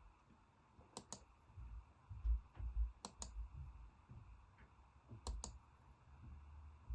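Three pairs of sharp computer clicks about two seconds apart, each pair a button pressed and released, stepping a forecast map ahead. Soft low thumps come in between.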